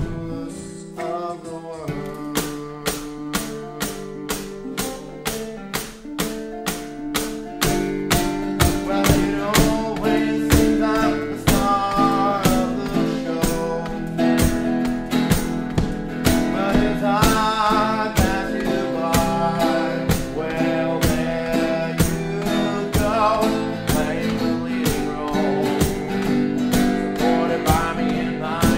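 Live solo song: an acoustic guitar strummed in a steady rhythm, with a man singing over it. The playing grows louder about eight seconds in.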